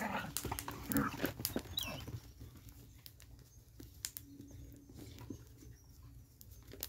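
Two small dogs fighting, with snarling and yelping calls for about the first two seconds, then dying down to a few faint clicks.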